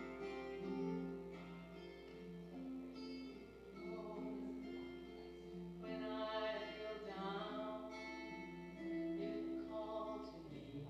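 A woman singing a slow communion song solo, with instrumental accompaniment, on long held notes.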